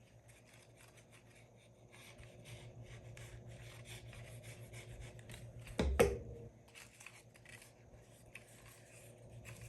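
Paper pages rustling and being rubbed as folded sheets are glued and pressed together by hand, with one sharp knock about six seconds in.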